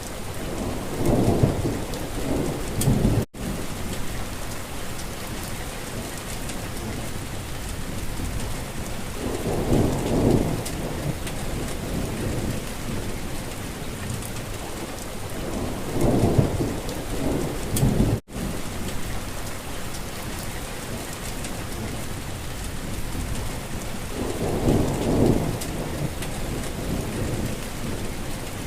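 Steady rain falling, with four low rumbles swelling and fading over a couple of seconds each. Twice the sound cuts out for an instant, like a splice in a looped recording.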